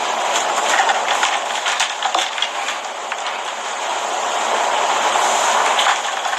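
A drink sucked through a straw and stirred in a metal tumbler: a steady rushing noise with scattered small clicks and rattles.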